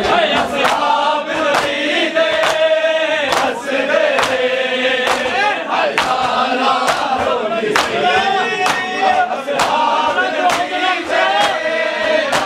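A group of men chanting a Punjabi noha (mourning lament) together, over regular strikes of hands beating on chests (matam) at about two a second.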